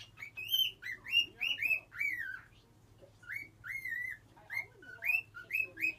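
Cockatiel whistling a run of short notes that slide up and down, in two phrases with a short pause between; a bird still learning to whistle.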